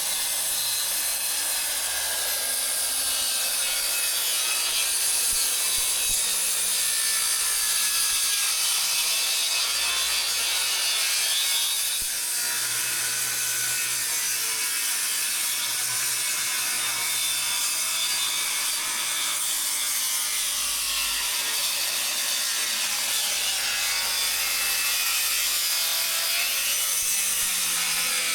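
Carpentry work on wooden siding boards: a steady, dense, hissy noise that runs on without pauses.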